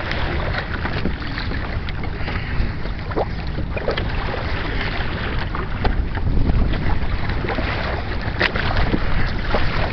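Wind buffeting the microphone over a steady low rumble, with water splashing and slapping against the hull of a Hobie Tandem Island sailing kayak moving through choppy water, in many short splashes.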